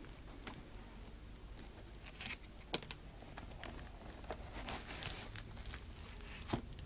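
Plastic packaging of a boxed collectible figure being handled: soft rustling and crinkling with scattered light clicks and taps, the sharpest a little under a second in, near the middle and near the end.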